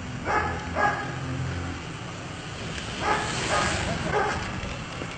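A dog barking in two pairs of short barks: two quick barks near the start and two more about three seconds in.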